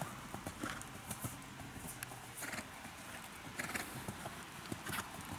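Hoofbeats of a ridden horse cantering on a sand arena, a run of soft repeated thuds.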